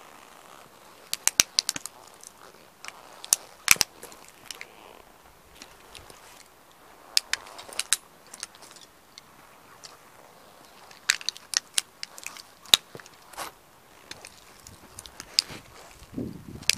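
Lug soles of Lowa hiking boots stepping and stamping on concrete strewn with broken plastic toy-car fragments: sharp cracks and crunches come in clusters every few seconds.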